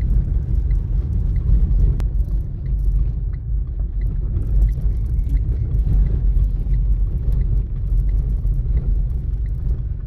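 Car driving on an unpaved gravel road, heard from inside the cabin: a steady low rumble of tyres and engine, with scattered faint clicks.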